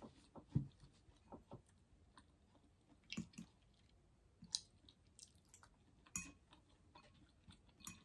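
Metal fork clinking and scraping against a glass salad bowl while the salad is stirred and picked at: a few faint, sharp clicks spaced one to two seconds apart, with some faint chewing.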